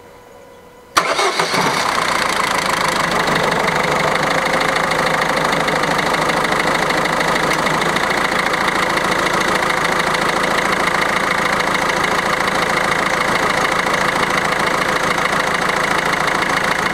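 Citroën C4's 1.6 HDi diesel engine starts about a second in and settles into a steady idle. Its crankcase breather (PCV) valve membrane has just been replaced to cure an oily, smoking leak.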